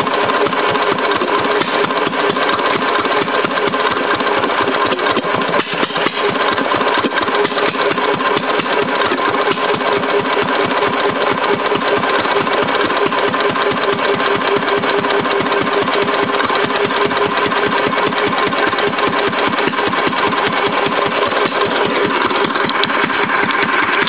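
Witte B oilfield engine, a single-cylinder stationary engine, running steadily with its exhaust unmuffled.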